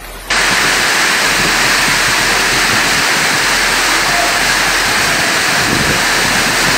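Torrential rain and floodwater rushing along a street: a loud, steady rush that starts suddenly a moment in.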